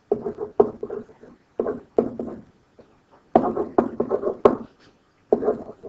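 A pen or stylus tapping and scratching on a writing surface in quick clusters of short knocks, as a string of letters is written by hand.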